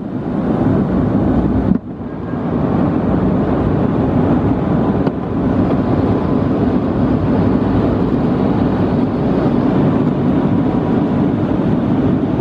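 Steady roar of an airliner cabin in flight, the jet engines and rushing air heard from a window seat over the wing. The level briefly drops about two seconds in, then returns.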